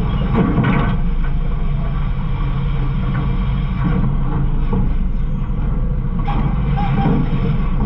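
Garbage truck running, heard from its rear hopper: a steady low engine rumble with a few clanks and rattles from the hopper.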